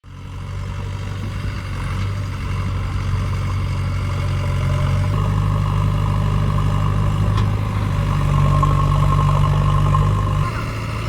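Heavy machine's engine running steadily, its pitch rising slightly about halfway and dropping back near the end.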